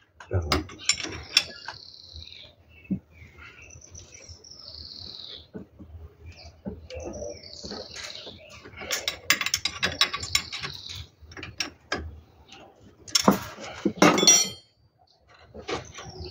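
Ratchet wrench clicking in several runs while a metal hose clamp is tightened, among small metallic knocks and clinks from the tools.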